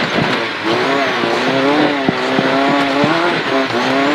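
Rally car engine pulling hard, heard from inside the cabin; its note climbs and drops back several times. Short sharp knocks come through as the car crosses the rough dirt track.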